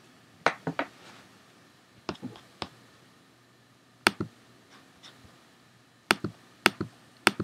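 Sharp clicks at a computer, singly and in quick runs of two or three: a cluster about half a second in, another around two seconds, one at four seconds as an image window is closed, and several more near the end as files are selected and opened.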